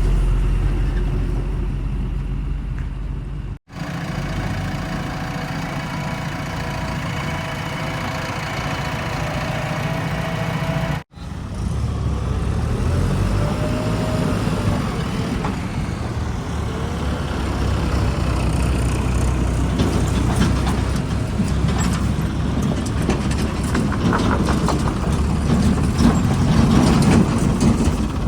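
Heavy diesel engines of a backhoe loader and tractors running under load, a steady low hum that cuts out sharply twice at edits and gets louder near the end.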